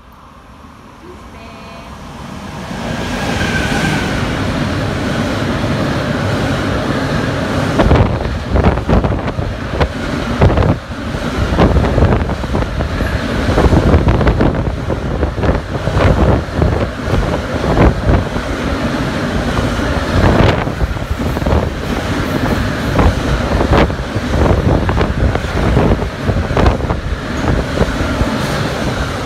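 A freight train of double-deck car-transporter wagons, hauled by a Class 185 electric locomotive, runs through close by. It grows louder over the first few seconds as it comes in. From about eight seconds in, the wheels and wagons clatter and rattle with repeated knocks as the loaded car carriers pass.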